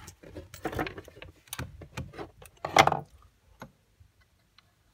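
Irregular taps, knocks and rustles of handling, the loudest about three seconds in, then a few faint ticks.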